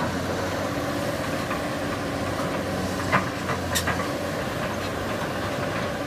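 Excavator's diesel engine running steadily, with a few sharp clanks about three to four seconds in.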